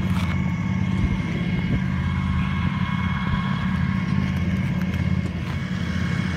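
A vehicle engine idling steadily, a constant low rumble with a thin steady tone above it.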